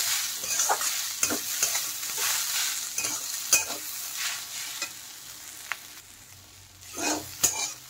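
Metal spatula scraping and stirring water spinach and diced potato in a metal kadai while the stir-fry sizzles. The sizzle and stirring fade down about two thirds of the way through, then a few more scrapes come near the end.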